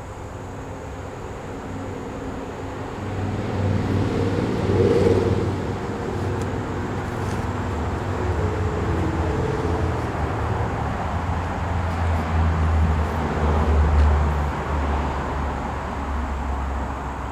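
A motor vehicle's engine running nearby, getting louder about three seconds in and staying loud, its pitch shifting as it goes.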